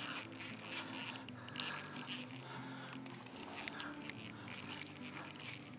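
Soft background music, with faint crunching and clicking noises over it.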